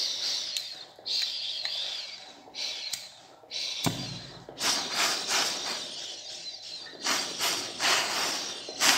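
Hand-held gas torch: gas hissing in short spurts with a few sharp clicks, then the flame catches about four seconds in and burns with a rushing noise that swells and fades in pulses.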